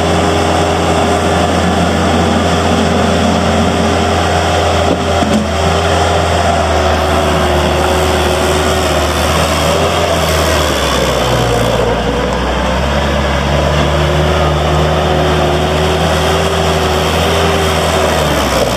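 Bobcat 853 skid steer loader's diesel engine running steadily, its tone changing about ten seconds in.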